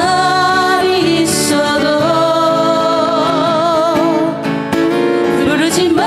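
Acoustic guitar accompanying a slow ballad, with a melody line held in long notes with a wide vibrato.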